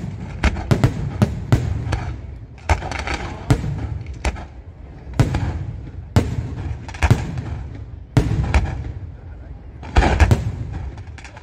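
Aerial fireworks bursting in a rapid, irregular series of sharp bangs, with a low rumble between them; the heaviest cluster of bangs comes about ten seconds in.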